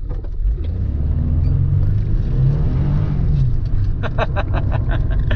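Nissan 300ZX twin-turbo V6 heard from inside the cabin, accelerating hard. Its pitch rises for about two and a half seconds, then drops. A short burst of laughter comes near the end.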